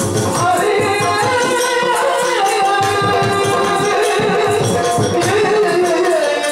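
Yakshagana ensemble music: the bhagavata sings a held, wavering melody over a steady drone and rhythmic chende and maddale drumming, with the jingle of dancers' ankle bells.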